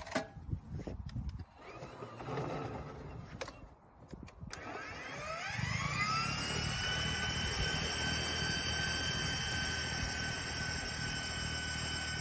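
A few clicks and knocks, then about four and a half seconds in the electric motor of an EGO 56V two-stage battery snow blower spins up with a rising whine. It settles into a steady high-pitched whine over a low rumble as the machine throws snow.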